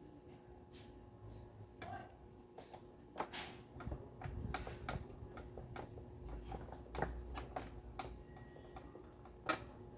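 Irregular light clicks and taps, like small parts and tools being handled, with a faint steady hum behind them.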